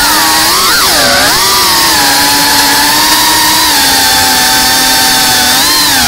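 FPV racing quadcopter's brushless motors and propellers whining: the pitch dips and rises sharply about a second in with a throttle change, then holds fairly steady, with a small swell and drop near the end.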